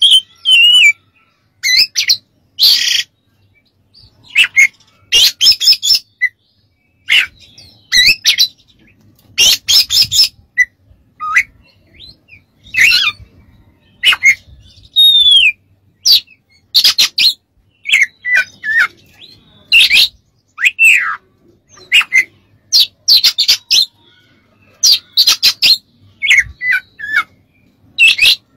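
Oriental magpie-robin singing a long series of short, loud phrases, with clear rising and falling whistles mixed with harsh chattering notes and brief pauses between phrases.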